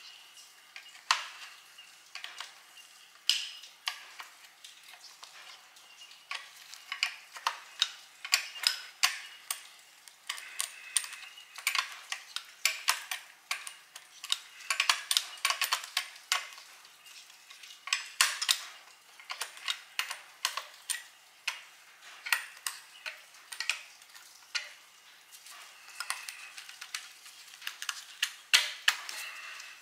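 Hand ratchet wrench clicking in quick runs, over and over, as a bolt is worked on a Ford flathead V8 engine block, with light metal clinks of the tool.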